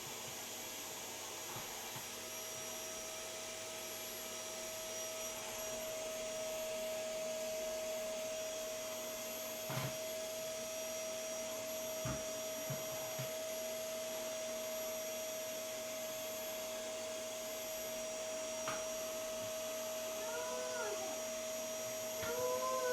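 Vacuum cleaner running steadily with a constant whine, with a few knocks around the middle. Several short squeaky calls that rise and fall come near the end.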